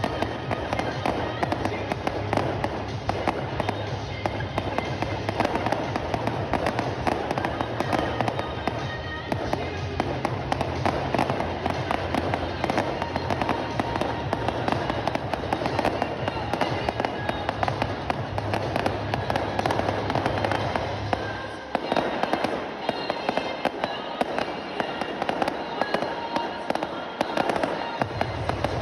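Fireworks display: a dense, continuous stream of crackling and popping from aerial fireworks, with music playing underneath. The music's bass drops out for several seconds about three-quarters of the way through, while the crackling carries on.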